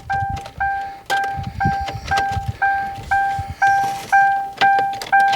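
A Panther-platform Ford's warning chime dinging steadily, about two dings a second, with the key in the ignition. Soft knocks and rattles of the key being worked sound under it.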